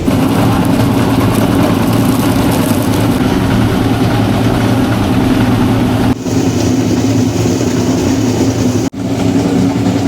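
Electric chocolate mill running, grinding cacao beans with sugar: a loud, steady motor hum with a rough grinding noise over it, broken off briefly twice near the end.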